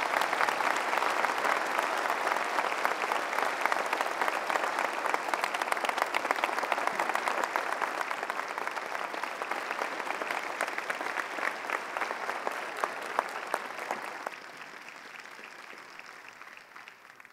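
A large audience applauding steadily, a dense mass of clapping that thins out and fades away over the last few seconds.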